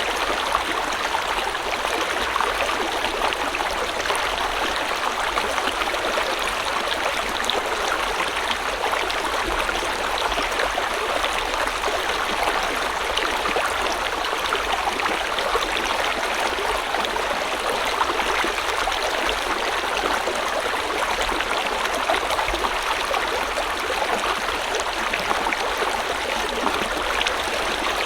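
River water running steadily over stones, a continuous rushing with fine splashing and gurgling detail.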